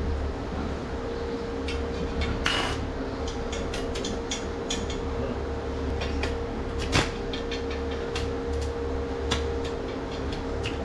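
A steady low machine hum under scattered sharp clicks and knocks, the loudest one a little after two seconds in and another near seven seconds.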